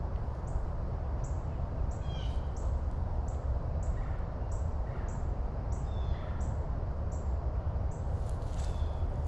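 Outdoor ambience: a steady low rumble with a few scattered bird chirps.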